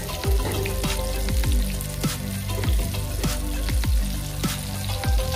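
Batter-coated whole eggplants frying in shallow oil in a pan, with a steady sizzle, under background music that has a steady beat.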